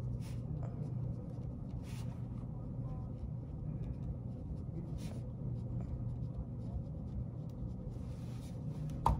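Pen writing on paper: faint, scratchy strokes at irregular intervals over a steady low room hum, with a sharp tap near the end.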